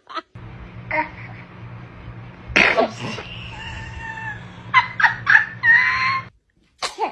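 A baby sneezing: one sudden burst about two and a half seconds in, followed by a few short little vocal sounds.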